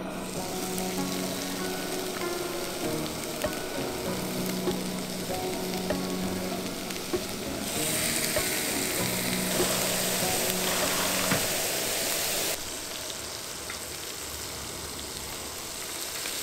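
Raw beef steaks sizzling as they are laid on a hot enamelled cast-iron grill pan over a portable gas burner. The sizzling grows much louder about eight seconds in as more meat goes onto the pan, and drops back to a steady sizzle about twelve seconds in.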